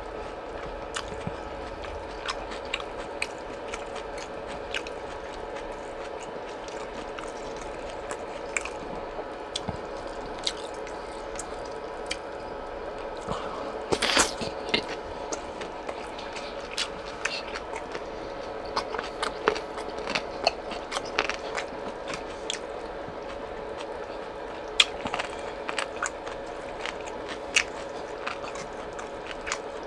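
Close-up chewing and wet mouth sounds of someone eating slices of boiled pork, with irregular sharp smacks and clicks throughout and a louder burst about halfway. A steady faint hum runs underneath.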